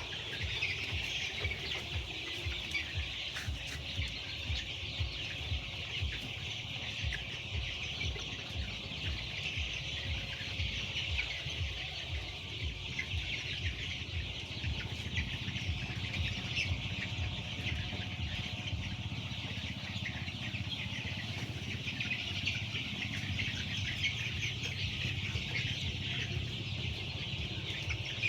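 A flock of chickens clucking and calling continuously, a dense unbroken chatter. Underneath, a low regular pulsing at about two or three beats a second runs through the first two-thirds and then fades.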